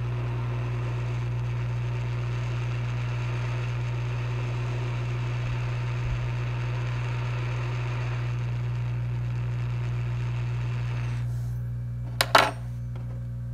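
Hot air rework station blowing steadily, heating the solder to reflow a tiny display connector onto an Apple Watch screen's flex cable. The airflow cuts off about 11 seconds in, and a couple of sharp clicks follow.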